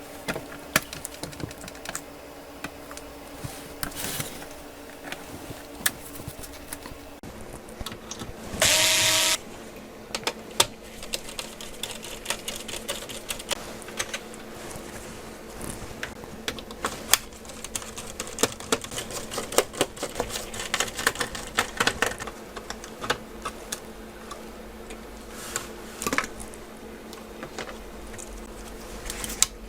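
Small, irregular clicks and taps of hands and tools handling a laptop's case and internal parts during disassembly, over a faint steady hum. A short, loud burst of hiss comes about nine seconds in.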